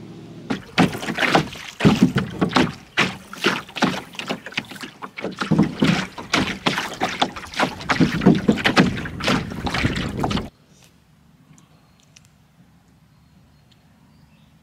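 Wind-driven chop slapping and splashing irregularly against the hull of a wooden cedar strip canoe. It cuts off suddenly about ten and a half seconds in, leaving only a faint low hum.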